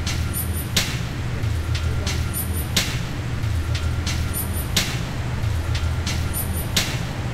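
Background music with a steady low bass and a regular beat: a sharp hit about every two seconds, with lighter ticks in between.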